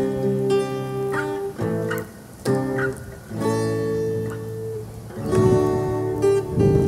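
Acoustic guitar music, plucked notes with some strumming.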